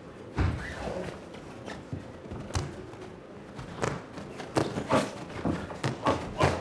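Boxing punches landing on gloves and body as sharp separate thuds, spaced out at first and then coming in a quick flurry near the end, with the boxers' shoes scuffing on the ring canvas.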